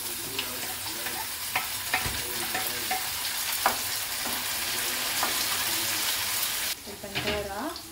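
Fresh chopped tomatoes sizzling as they are tipped into a hot frying pan of onion and pepper-paste sauce and stirred with a spatula, with a few sharp knocks of the bowl and spatula against the pan. The sizzling hiss cuts off suddenly near the end.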